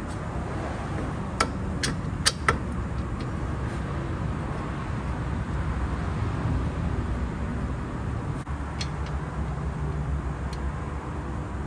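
A few sharp metallic clicks, about one and a half to two and a half seconds in, as a new wheel hub bearing and its mounting bolts are handled and started by hand against the steering knuckle. They sit over a steady low rumble.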